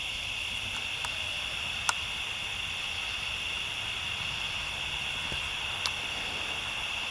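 Steady chorus of night insects in a field, a constant high-pitched shrill. A faint click about two seconds in and another near six seconds.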